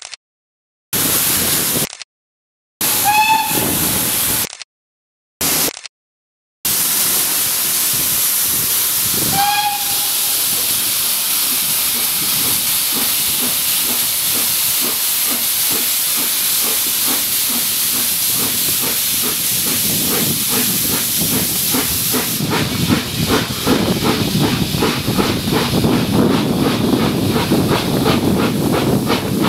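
Steam train heard from an open carriage window while moving: a steady hiss of steam and rushing air, with two short whistle toots, about three seconds in and again about nine and a half seconds in. From a little past twenty seconds the train's fast rhythmic beat comes up under the hiss. The sound cuts out completely several times in the first seven seconds.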